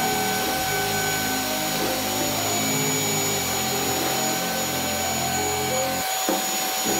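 Handheld vacuum cleaner running steadily: a constant high whine over rushing air.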